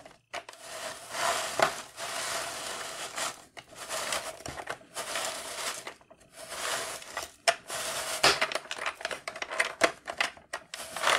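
Plastic hand crank and gears of a toy ice-cream maker turning, its scraper grating frozen ice cream off the chilled drum. It comes in several spells of one to three seconds, broken by short pauses and sharp plastic clicks, as the gears keep slipping out of mesh.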